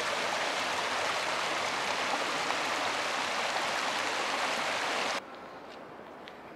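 Shallow mountain creek rushing and babbling over a rocky bed, a steady wash of water. It cuts off abruptly about five seconds in, leaving a much quieter background.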